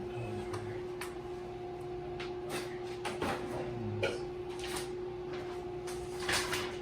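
Scattered light clicks and knocks of small bidet mounting parts being handled, over a steady hum.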